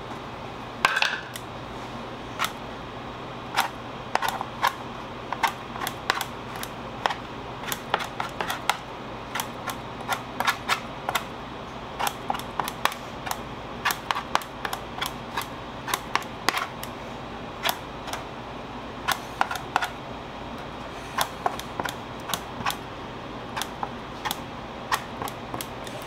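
An irregular run of sharp clicks and light taps, a few a second, over a steady low hum.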